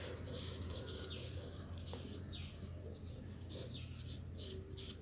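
A toothbrush scrubbing teeth with a tomato, lemon and toothpaste paste, in quick, uneven brushing strokes about two a second, over a steady low hum.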